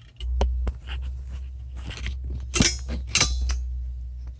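Camera or microphone being handled: a low rumble with several knocks and rustles, the two loudest about two and a half and three seconds in.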